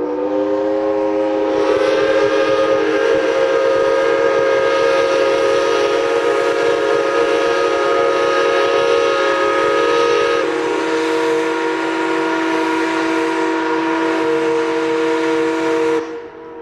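Several ships' steam whistles sounding together in one long, held chord of different pitches, typical of paddle steamers saluting. Another whistle joins about two seconds in, one drops out about ten seconds in, and all cut off together near the end.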